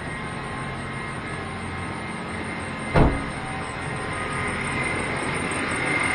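Chevy Tracker engine running at idle with a steady high squeal from the belt drive that grows louder over the last few seconds; the owner takes the squeak for a worn small pulley, not the AC compressor the seller blamed. A single sharp thump about halfway through.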